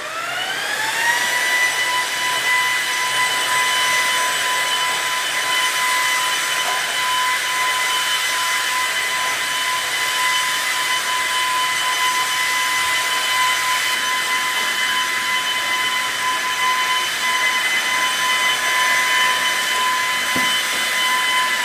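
Ryobi One+ 18V brushless stick vacuum running on carpet. Its motor spins up over the first second into a steady high whine over a rush of air.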